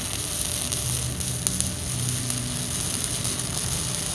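Stick (SMAW) welding arc from a 3/32-inch 309 stainless-to-carbon electrode at about 75 amps, crackling steadily as it runs the root pass along the plate bevel.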